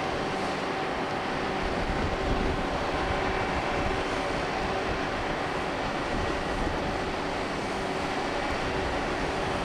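Cruise ship's machinery, its engines and ventilation, droning steadily: a low rumble with a few faint held tones over an even hiss.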